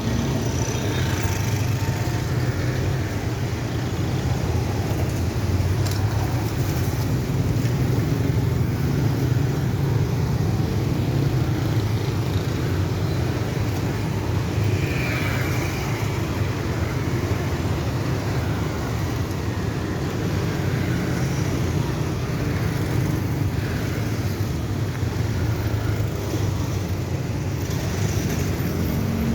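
Steady low rumble of passing vehicles, starting suddenly and holding level.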